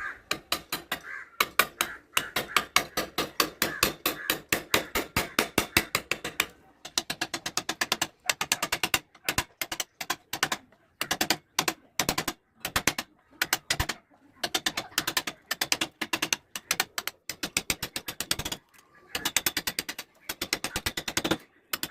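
Rapid light mallet taps on a wood-carving chisel cutting into wood, about five a second, in runs broken by short pauses.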